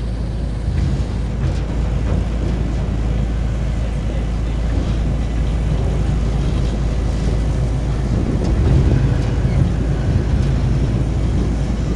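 Ride-on miniature park train running along its track, heard from a passenger car: a steady rumble of the train in motion, with wind buffeting the microphone.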